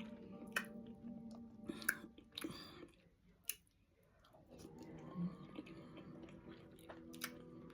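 A person chewing food close to the microphone, with sharp mouth clicks, pausing briefly about halfway through.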